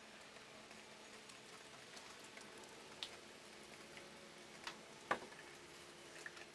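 Engine oil draining from the sump of a Lexus CT200h through the open drain-plug hole in a thin stream into a catch pan: a faint steady trickle with a few sharp ticks, the loudest about five seconds in.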